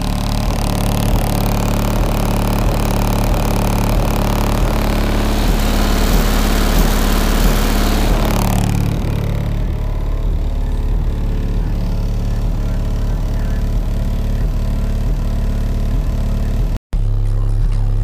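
Heavy, distorted bass music played loudly through two Skar VXF 15-inch subwoofers in a car trunk, with a harsh buzzing noise over the first half that fades about nine seconds in. The sound cuts out for an instant near the end.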